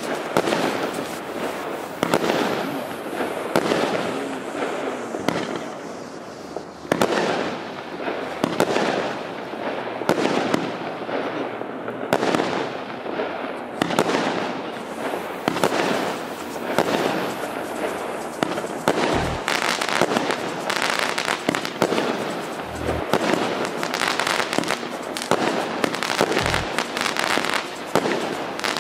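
SuperSalute 'Bogema' consumer firework cake, a 120-shot battery of 0.8-inch (20 mm) calibre, firing shot after shot: sharp launch pops and aerial bursts. The shots come faster in the second half, with a few deeper thumps among them.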